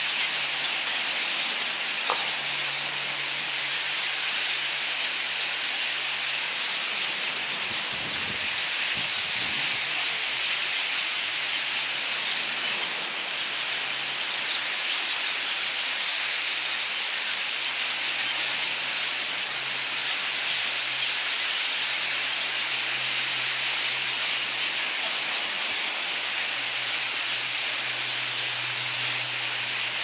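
A large flock of small birds in the trees all calling at once: a dense, steady, high-pitched chatter of countless overlapping calls.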